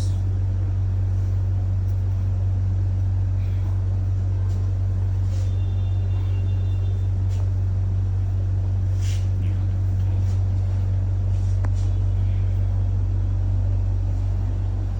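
A steady low hum from a motor or electrical device, with a few faint clicks and taps over it.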